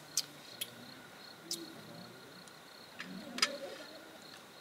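Crickets chirping in a steady, high-pitched trill, with a few sharp clicks scattered through; the loudest click comes about three and a half seconds in.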